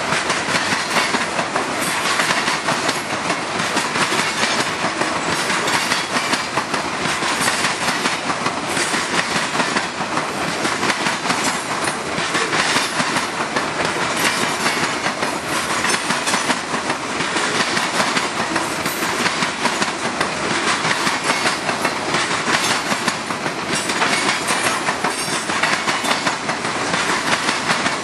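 Covered hopper cars of a long freight train rolling past, their steel wheels clicking and clattering steadily on the rails.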